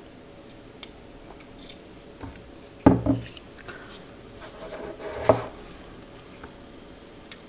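Handling of a steel vernier caliper and a metal sleeve on a tabletop: light rubbing and small clicks, with two louder knocks about three and five seconds in.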